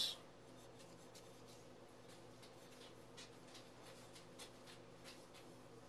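Dry sugar-and-spice mix sprinkled by hand onto sliced apples, making faint, irregular light ticks and rustling.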